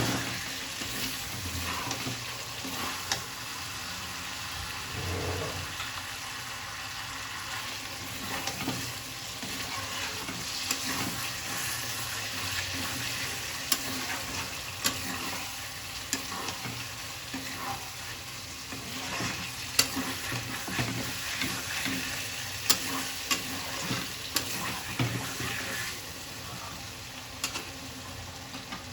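Food sizzling in hot oil in a cooking pan while it is stirred, with frequent sharp clacks of the stirring utensil against the pan.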